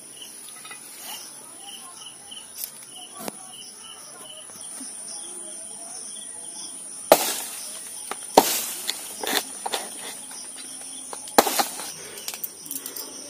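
A curved dao (machete) chopping into a banana plant, several sharp chops, the loudest about seven, eight and a half and eleven and a half seconds in. A steady chirping of insects runs under it.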